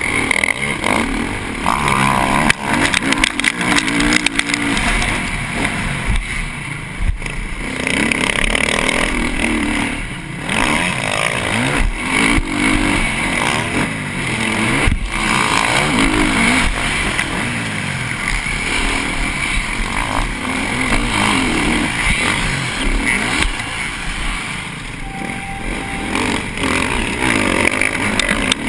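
TM MX450Fi 450cc four-stroke single-cylinder motocross engine at race pace, revving up and dropping back again and again as the bike is ridden through corners and straights, heard from the rider's helmet camera.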